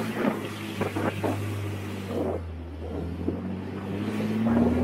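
Off-road vehicle's engine running steadily while driving over a rough dirt track, with several knocks and rattles from the bumps and wind on the microphone. Near the end the engine pitch rises as it accelerates.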